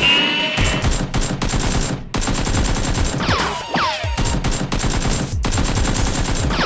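Rapid automatic gunfire: a dense, continuous run of shots, with a few falling whistling sweeps about three and a half seconds in.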